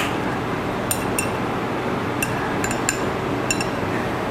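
Chopsticks clicking lightly against a plate again and again, fumbling to pick up slippery pieces of bamboo shoot, over a steady background hiss.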